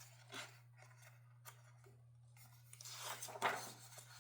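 Faint rustle of paper as a picture book's page is turned, a short one just after the start and a longer one about three seconds in, over a steady low hum.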